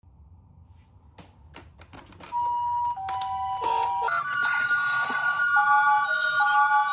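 A toy ambulance's electronic siren sounding a two-tone hi-lo pattern. It starts about two seconds in, after a few faint clicks, and steady higher tones join it about four seconds in.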